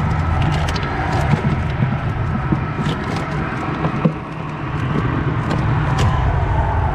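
Steady low rumble of road traffic, with scattered small clicks and knocks as fish are shifted about in a plastic cooler.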